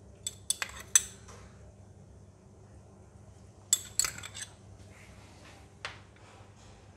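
Metal spoon clinking against a small glass bowl and a ceramic plate while crispy fried garlic is spooned out. There are four quick clinks in the first second, a cluster near four seconds and one more near six.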